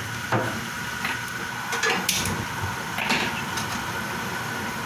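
Kitchen clatter: a handful of scattered knocks and clinks of cookware and utensils being handled.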